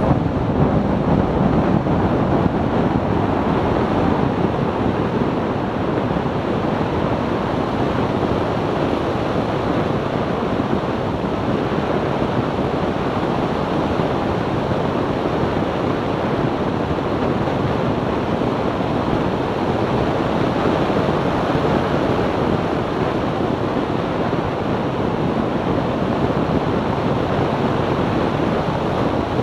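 Steady rush of wind and road noise from a BMW E46 330ci cruising at speed, with no distinct engine note standing out.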